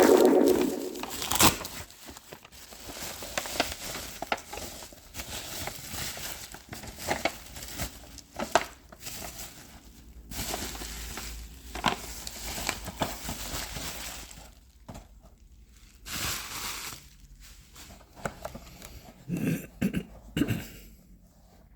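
Model packaging being unwrapped by hand: plastic and cardboard crinkling and rustling, with scattered clicks and taps and a few louder knocks near the end.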